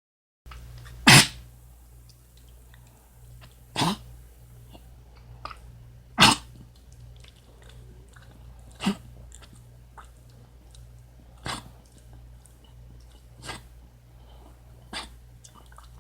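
Dog coughing in a series of short, harsh coughs every couple of seconds, the strongest about a second in and about six seconds in, then weaker ones. The owner suspects kennel cough.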